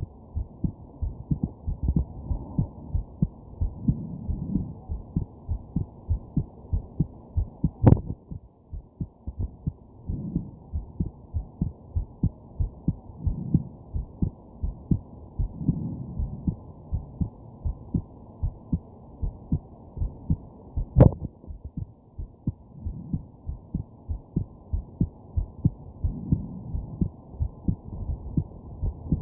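Close-miked human heartbeat, a steady run of soft low thumps. It is broken twice by a sharp, loud hiccup, once about eight seconds in and again about twenty-one seconds in.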